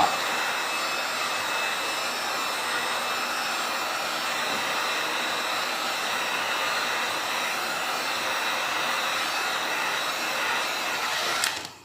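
Heat gun running with a steady rush of air and faint high tones, switched off near the end. It is heating the phone's screen glass to soften the adhesive.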